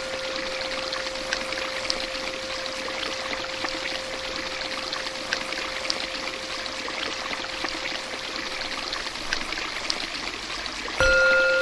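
Running, trickling water with small splashes, over a steady hum. Near the end a louder steady tone cuts in suddenly.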